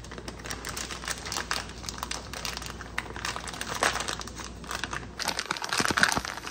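Plastic bag of shredded cheese crinkling as it is handled and pulled open: a dense run of irregular crackles, louder near the end.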